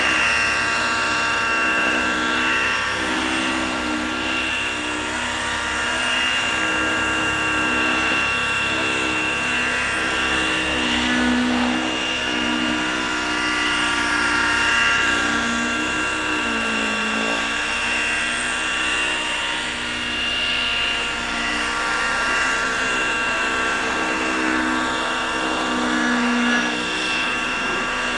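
Freya 90 model helicopter's glow engine and rotors running in flight, the pitch rising and falling as it manoeuvres, with a sharp dip and recovery about seventeen seconds in.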